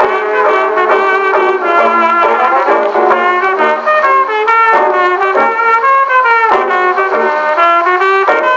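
1923 acoustic jazz dance-band record played on an Edison Diamond Disc phonograph (a 1922 Edison London Console): a brass-led band playing, its sound thin and narrow with no bass or top end.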